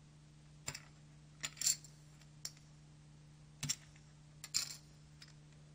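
Stack of poker chips being split and riffle-shuffled together at full speed, the chips clicking against each other in short clattering bursts roughly once a second.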